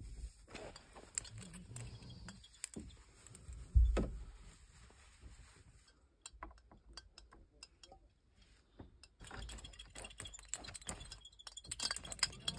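Christmas ornaments clinking and rattling against each other as they are handled and hung on a string, in scattered light clicks that grow busier near the end. A single loud thump comes about four seconds in.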